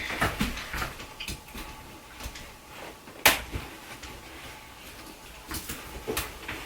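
Scattered clicks and rustling as snap fasteners of a stroller's fabric cover are pressed onto the frame, with one sharp click about three seconds in.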